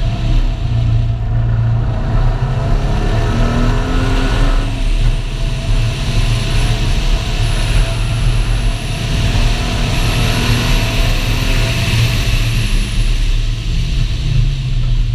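Mercury Cougar's engine running hard through an autocross run, its revs rising and falling. This is the run on which the engine developed rod knock.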